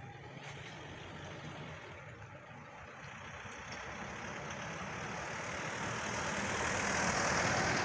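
A road vehicle passing by. Its engine and tyre noise swells gradually over several seconds to its loudest near the end, then begins to fade.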